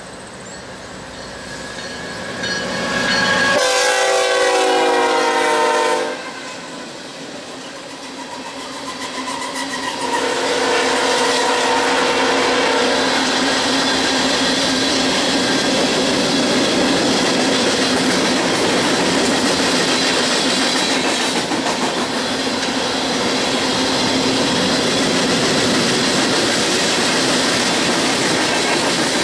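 Three CSX diesel locomotives pass with a long air-horn blast of several notes at once, starting about three and a half seconds in and lasting over two seconds. From about ten seconds in, the empty coal hoppers roll by with a steady, loud rolling noise.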